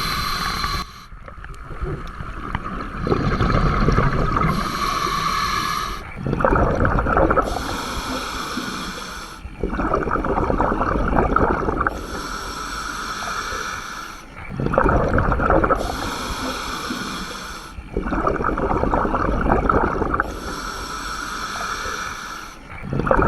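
Scuba diver breathing through a regulator underwater, the hiss of each inhale alternating with the gurgle of exhaled bubbles, a full breath about every four seconds.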